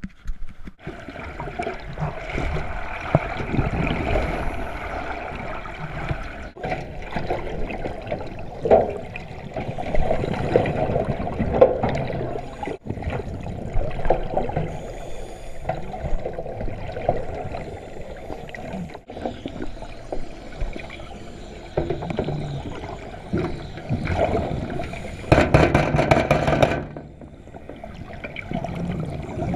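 Sea water sloshing and gurgling around a camera held at and below the surface, uneven and swelling, with a louder rush of water a few seconds before the end.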